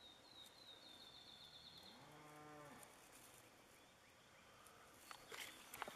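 A cow moos once, faintly and briefly, about two seconds in, its pitch rising at the start and then holding. A high chirping trill sounds in the first second, and a few soft clicks and rustles of handling come near the end.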